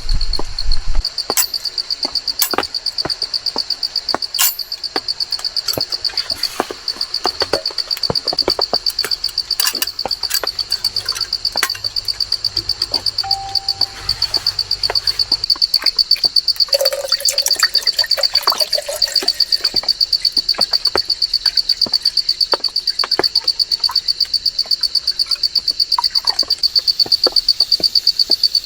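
An insect chirping loudly in a high, even pulse of about four chirps a second, starting about a second in, with scattered short clicks alongside.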